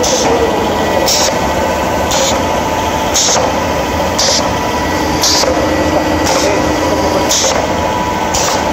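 Homemade compressed-air engine running: its pneumatic cylinder and valve let out a short hiss of exhausting air about once a second with each stroke. A steady hum continues underneath.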